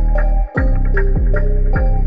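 Background music with a steady beat over sustained bass notes; it briefly drops out about half a second in.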